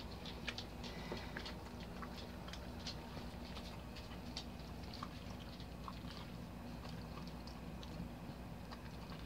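Faint, irregular wet clicks and smacks of a corgi mother's mouth working at a newborn pup during whelping, over a steady low hum.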